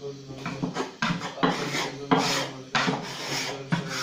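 Hands kneading prosphoro bread dough in a floured wooden kneading trough: rough scraping and rubbing strokes of dough and flour against the wood, about six in four seconds, at an uneven pace.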